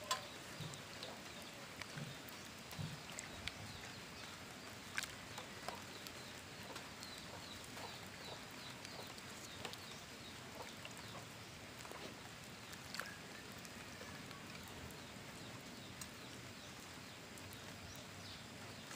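Faint rural background with chickens clucking now and then, and a few light clinks of a metal ladle stirring in an aluminium pot of coconut-milk soup.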